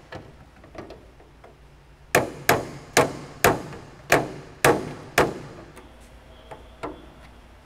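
A hammer striking a metal punch held up against the underside of an aircraft tail surface, working a rusty bolt out. About seven sharp, ringing blows come roughly half a second apart from about two seconds in, followed by a couple of lighter taps.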